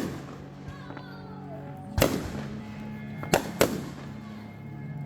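Fireworks exploding overhead: four sharp bangs, the last two in quick succession, with music playing underneath.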